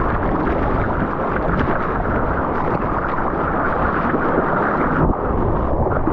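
Loud, steady rush of surf water with wind buffeting the microphone, and a brief drop about five seconds in.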